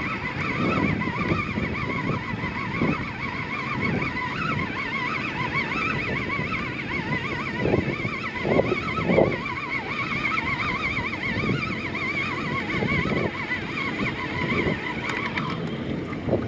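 Fishing reel being wound in, its gears giving a steady wavering whine that stops about a second before the end, over wind and water noise around a small boat.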